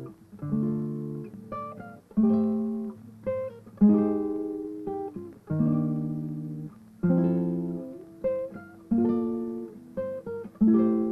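Background music on acoustic guitar: chords struck about every second and a half, each ringing out and fading before the next, with a few single notes picked in between.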